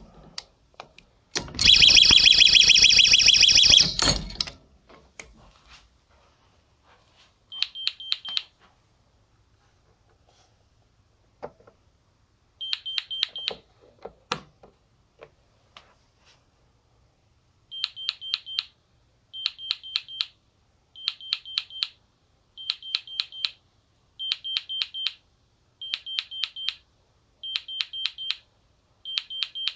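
GE Simon XT alarm panel sounding a warning after the front door sensor is tripped while the system is armed: groups of five or six quick high beeps, first two groups about five seconds apart, then a group about every second and a half. A loud harsh burst lasting almost three seconds comes about a second and a half in.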